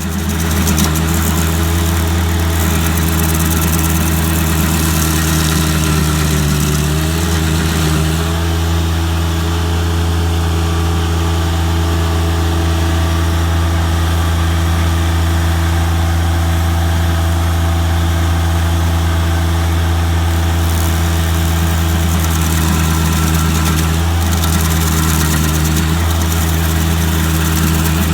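An engine runs steadily at a constant speed, with a slight shift in pitch about seven seconds in.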